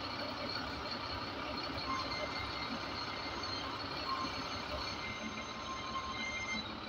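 Zoomlion 50-ton truck crane's diesel engine running steadily as it sets a cement silo in place, with short electronic beeps about every two seconds.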